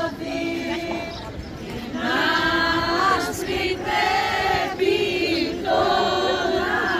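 A group of women and men singing a traditional Greek Easter dance song together, in phrases with long held notes. The singing is quieter at first and swells as the full group comes in about two seconds in.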